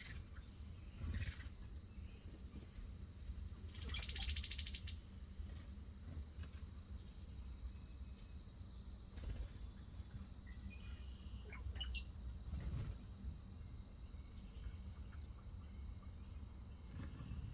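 Wild backyard birds calling: a buzzy, chattering call of about a second about four seconds in and a sharp call near twelve seconds, with a few fainter calls between. Behind them runs a steady high insect trill.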